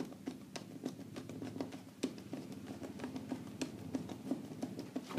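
Screwdriver working a terminal screw on a miniature circuit breaker (MCB), making small irregular clicks and scrapes, several a second, over a steady low hum.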